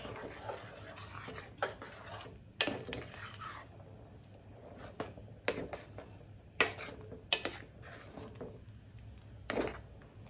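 A spoon stirring a thick mango-and-yogurt curry in a stainless steel pot, clinking and scraping against the pot with scattered knocks about once a second.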